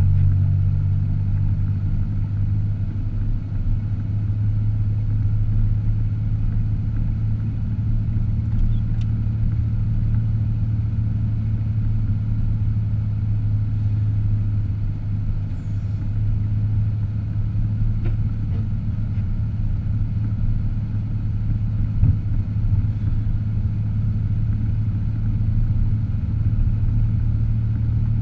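A car driving at a steady pace: a continuous low engine and road drone.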